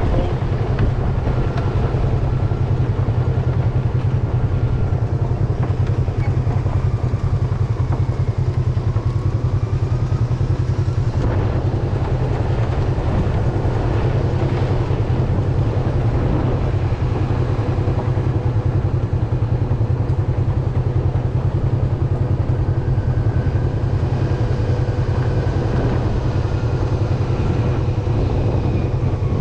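A motor vehicle's engine running steadily while riding along, with a constant low rumble and road noise.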